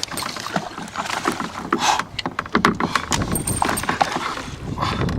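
Irregular clicks and knocks over a low rumble: handling noise and gear knocking about on a fishing kayak.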